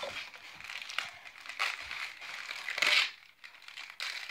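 Wrapping paper crinkling and rustling as a layer is unwrapped from a gift, in irregular handling noises with a louder burst about three seconds in.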